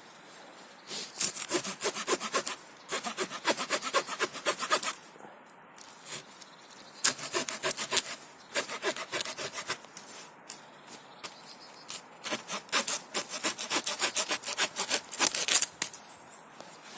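Victorinox Rangerwood 55 pocket knife's small saw blade cutting a rotten stick with quick back-and-forth strokes. The strokes come in five runs with short pauses between them.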